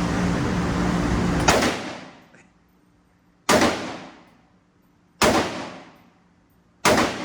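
Rifle shots from a 300 Blackout rifle fired slowly one at a time: four sharp reports about one and a half to two seconds apart, each with a long echoing tail. A loud continuous din fills the first second and a half.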